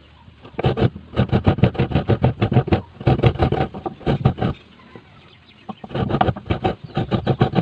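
Rapid scraping strokes, about ten a second, in bursts of a second and a half to two seconds with short pauses between: the skin of a hairy brown tuber being scraped off by hand.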